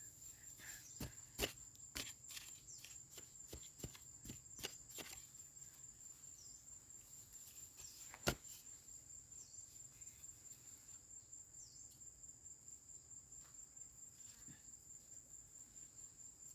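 Hand digging in dry soil: scattered scrapes and knocks of fingers and a digging bar working crumbly earth, busiest in the first five seconds, with one sharp knock about eight seconds in. Insects trill steadily and high-pitched throughout.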